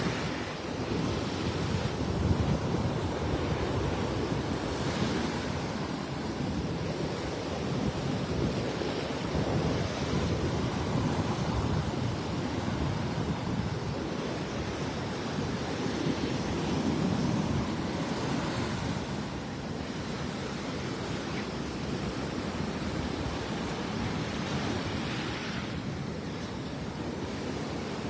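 Gulf of Mexico surf breaking and washing up on the beach, a continuous rush that swells and eases every few seconds, with wind buffeting the microphone.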